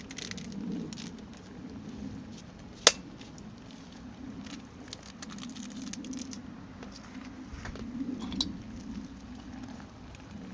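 Small wood fire crackling in a Solo Stove Campfire: scattered small pops over a low, uneven rumble, with one sharp click about three seconds in.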